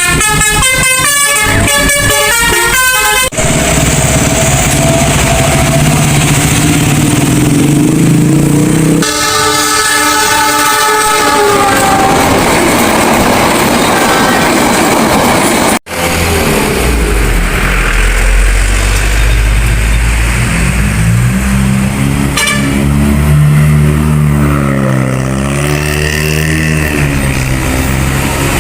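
Multi-tone 'telolet' bus horn of the basuri type playing a quick jingle for about three seconds, then held horn notes and another warbling horn phrase. After a sudden break about halfway, a heavy vehicle's diesel engine runs and revs, its pitch rising and falling.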